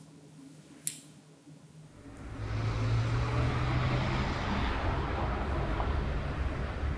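One sharp snip of scissors cutting paper about a second in. From about two seconds, city traffic noise swells up and holds: a steady rumble with a low hum.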